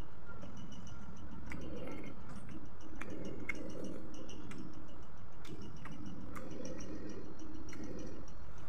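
Close-up chewing of fried chicken, wet and smacking, with scattered sharp clicks of lips and teeth at uneven intervals.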